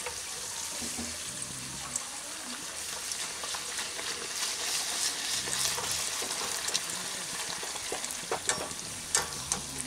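Fuchka puris deep-frying in hot oil in a steel kadai, sizzling steadily while a wire-mesh strainer presses them so they puff up round. A few sharp clicks stand out from the sizzle.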